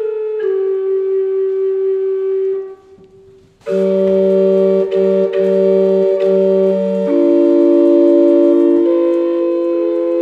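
Homemade portative organ playing slow, sustained chords with flute-like pipe tones, layered from two recorded tracks. The music breaks off for about a second near the three-second mark, then comes back as a fuller chord with a lower voice added that re-sounds several times.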